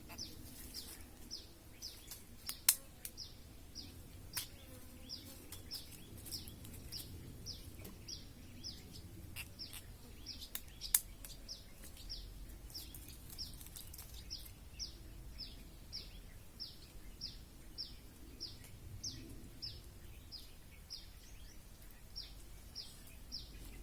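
A bird calling over and over: short, high notes sliding downward, about two a second, without a break. Two sharp clicks stand out, a few seconds in and about halfway through.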